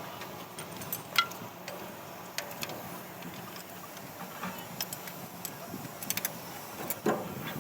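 Scattered light clicks and ticks over a low steady hum.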